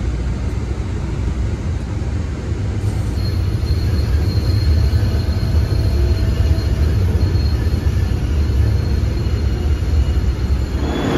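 MBTA Green Line light rail car running, heard from inside the passenger cabin as a steady low rumble that grows a little louder about four seconds in, with a faint high wheel squeal over it.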